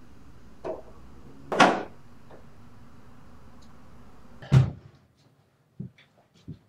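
Knocks in a quiet room over a low steady hum: a faint knock, then a sharp loud one about a second later, then a heavy low thump about three seconds after that. Near the end come a few soft clunks.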